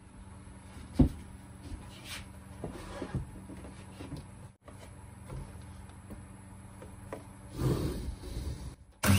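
A wooden board being handled on a miter saw: a sharp knock about a second in, then lighter knocks and wood rubbing against the saw's table and fence, with a short scrape near the end.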